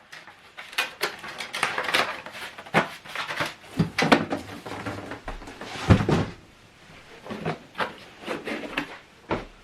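Unboxing handling noise: cardboard packaging and its contents being moved about, a string of irregular knocks, scrapes and rustles, with the loudest thump about six seconds in.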